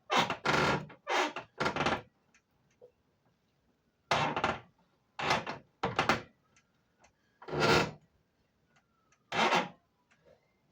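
A series of short scraping and rubbing noises, several in quick succession at first and then more spaced out, from handling and sliding parts while fitting a window air conditioner.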